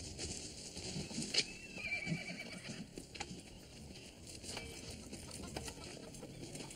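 Horses standing about, with scattered hoof knocks and a horse whinnying once, briefly, about a second and a half in.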